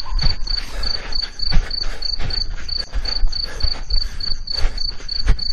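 Crickets chirping in a steady high pulse of about four chirps a second, under a run of irregular thuds of hurried running footsteps.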